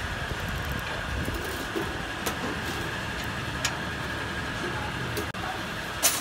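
A few sharp metallic clicks as a steel cylinder and its clamp bolt are handled with a spanner, the loudest near the end, over a steady background hum with a faint constant high tone.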